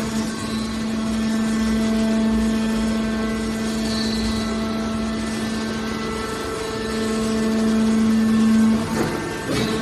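Hydraulic can baler running: its motor and hydraulic pump give a steady hum over a low rumble. The hum swells about seven seconds in, and a few short knocks come near the end.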